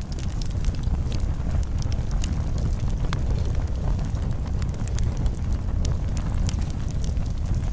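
Campfire burning: irregular sharp crackles and pops over a steady low rumble.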